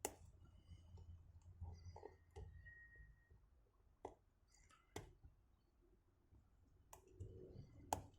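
Faint, scattered clicks of a lock pick working the pin tumblers of a vintage Schlage padlock, with a few sharper clicks at irregular intervals.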